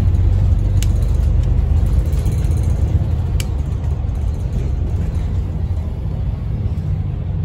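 Single-deck service bus on the move, heard from inside the passenger saloon: a steady low rumble of drivetrain and road noise, with two short sharp rattles, about a second in and about three and a half seconds in.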